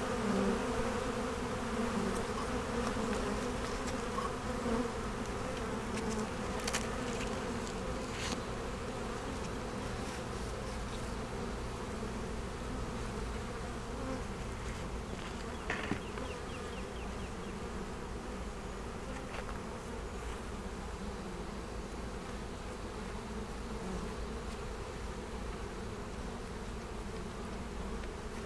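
Honeybees buzzing steadily around a hive whose boxes are lifted off the bottom board, a dense hum, with a few light clicks.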